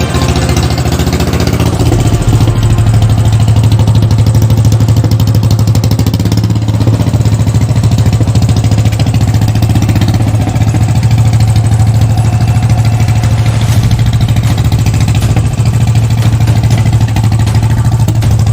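Royal Enfield Standard 500's single-cylinder four-stroke engine running steadily after a rebuild, with an even beat of exhaust pulses.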